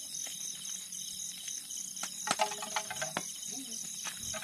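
Crickets chirping in a steady pulsing rhythm, a few chirps a second. A few sharp clicks and a short pitched call come about halfway through.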